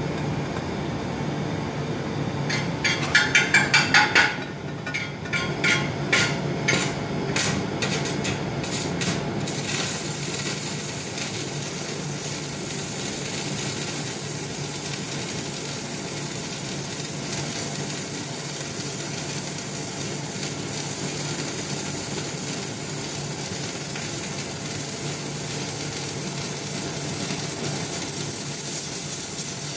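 Stick-welding arc from a homemade half-bridge resonant inverter welder. In the first few seconds the electrode is struck against the steel in a quick run of sharp taps and sputters, and then the arc settles into a steady crackling sizzle.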